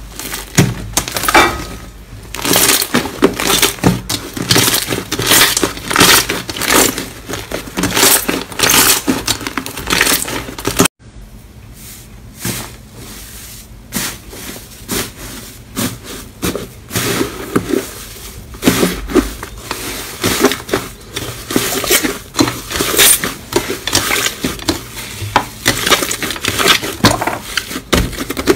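Slime being squeezed, pressed and kneaded by hand, giving dense, fast crackling and popping. About eleven seconds in it drops off suddenly, then returns softer before building again.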